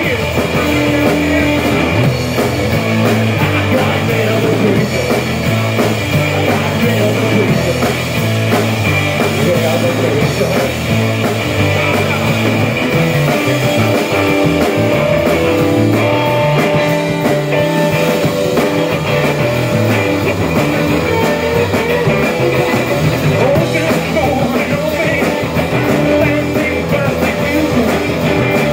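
A live rock band playing loudly: electric guitar through an amp and a drum kit, over held low notes that change every second or so.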